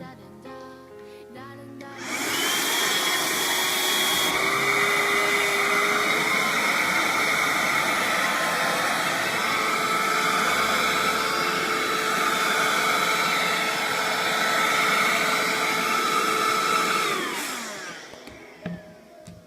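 120-watt wet-and-dry car vacuum cleaner switched on about two seconds in, running steadily with a rushing of air and a high motor whine while it sucks up three phones, then switched off near the end, the whine dropping in pitch as the motor spins down. Soft background music is heard before it starts.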